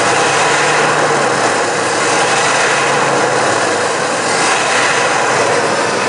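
Dodge van's V8 idling steadily with its engine cover off, warmed up close to operating temperature, under the even rush of the air conditioner blowing on full.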